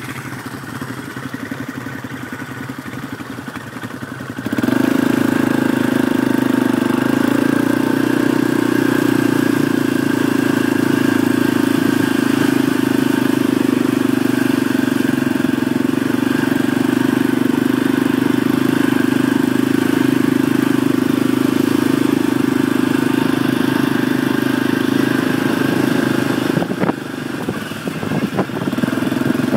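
Kymco quad (ATV) engine running as it is ridden over a dirt track. It gets suddenly louder about four seconds in, holds a steady drone, and dips briefly near the end.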